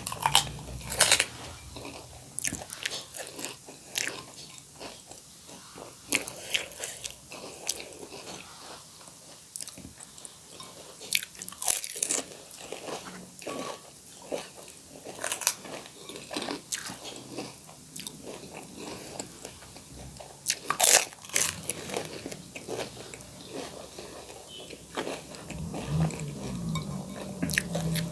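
People eating pani puri: crisp hollow puri shells cracking in irregular bites, with chewing between them and a few loud, sharp crunches.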